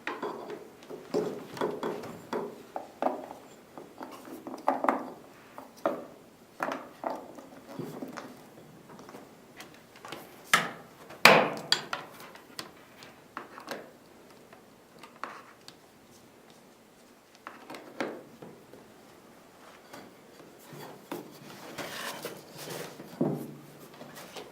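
Irregular knocks, clatters and rubbing from hands handling a computer and its cables on a desk, with the sharpest knock about eleven seconds in.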